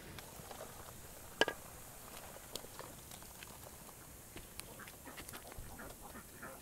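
A wooden spatula stirring chopped green beans and minced meat in a pot, with a sharp knock about a second and a half in and scattered small clicks.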